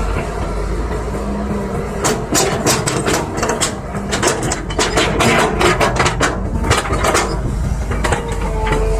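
Excavator's diesel engine running steadily, with a rapid, irregular run of knocks and clatters from about two seconds in until about seven seconds in.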